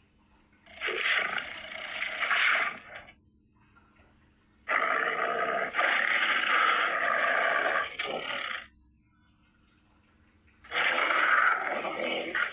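Monster sound effect for a humanoid moray eel creature: three hissing, roar-like bursts with short silences between them. The middle burst is the longest, about four seconds.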